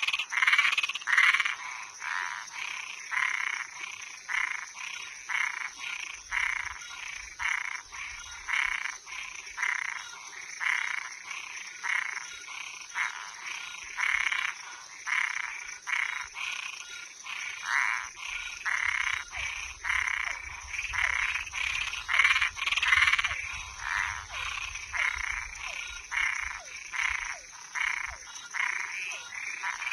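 A chorus of frogs and tree frogs calling at night, with short calls repeating roughly twice a second and overlapping. Under them runs a steady high-pitched drone.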